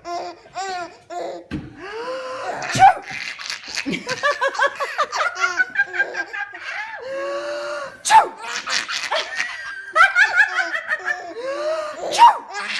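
A baby laughing uncontrollably in long, high-pitched peals of giggles and belly laughs. An adult's sharp sneezes break in, the loudest about eight seconds in.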